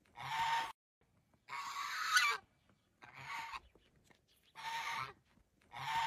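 Domestic goose honking repeatedly: five harsh calls, each under a second long, about one every one and a half seconds.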